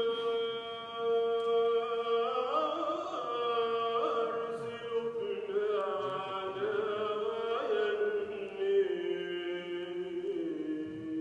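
Maronite liturgical chant sung at mass: long held notes that step and slide from pitch to pitch, with ornamented turns between them.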